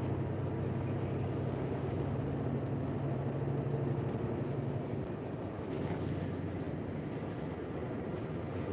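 Lorry's diesel engine humming steadily at motorway speed, heard inside the cab with road and tyre noise. About five seconds in the engine hum fades, leaving mostly road rumble.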